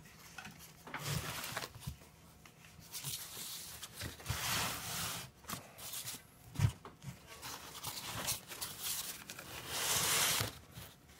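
A heavy aluminium transmission case being tipped upright and shifted on a wooden bench: bursts of scraping and rustling, with one sharp knock about six and a half seconds in.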